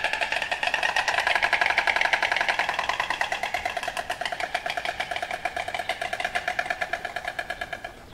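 Painted stork bill-clattering: a fast, even rattle, growing softer over the last few seconds and stopping near the end.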